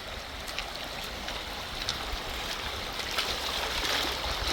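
Fast-flowing river water rushing steadily, with gusts of wind buffeting the microphone.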